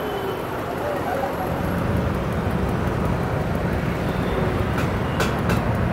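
Kiddie car ride turning, a steady low rumble from its frame and rubber tyres rolling on the pavement; the rumble grows louder about a second and a half in. A few light clicks come near the end.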